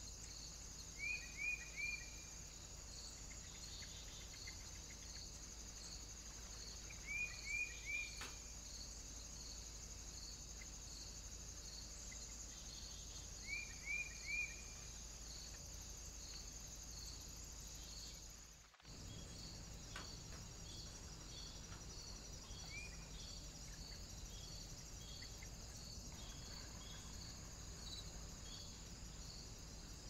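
Insects chirping steadily in a high, evenly repeating pulse over a constant high hiss. A small bird calls three times, each a group of three quick descending notes, about a second in, near 7 seconds and near 14 seconds.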